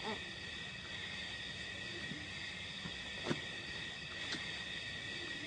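Night insect chorus, probably crickets, a steady high-pitched trilling with no pause. A few short clicks or snaps sound over it, the loudest about three seconds in.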